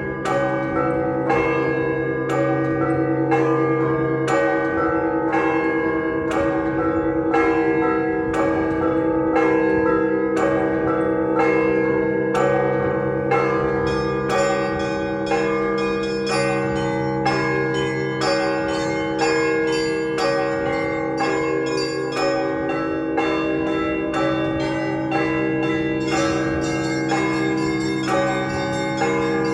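Russian Orthodox festive peal rung on a set of 48 church bells: the deep bells hum on underneath while the small bells are struck in a fast repeating pattern, about two strokes a second. The small-bell pattern grows busier about halfway through.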